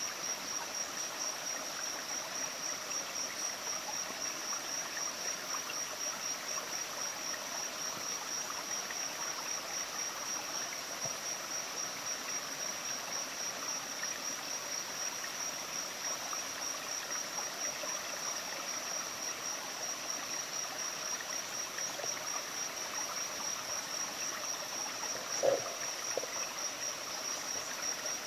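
Rainforest animal chorus: a continuous high-pitched, finely pulsing trill runs over a steady hiss of other calling creatures. A brief, louder, lower-pitched sound stands out once, about 25 seconds in.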